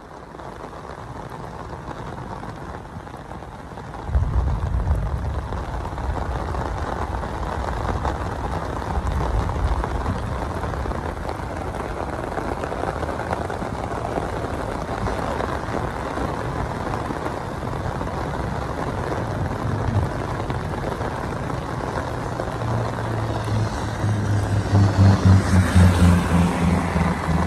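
Heavy rain falling steadily, a continuous hiss, joined by a low rumble about four seconds in. Near the end, a vehicle's engine grows louder as it comes along the wet road.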